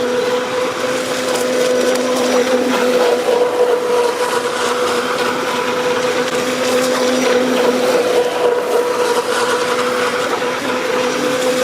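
Traxxas M41 RC catamaran's brushless motor whining at a high, steady pitch over a hiss of noise as the boat holds a full-throttle run.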